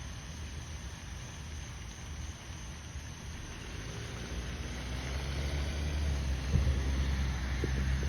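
Distant fireworks: a low rumble growing louder, with one sharp bang about six and a half seconds in.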